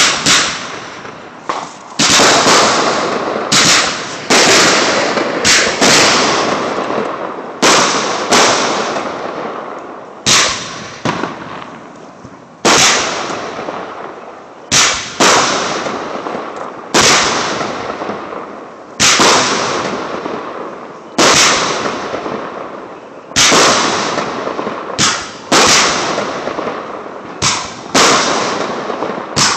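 Aerial fireworks shells bursting in quick succession in a professional display: sharp bangs about once a second, sometimes two close together. Each bang leaves a fading tail.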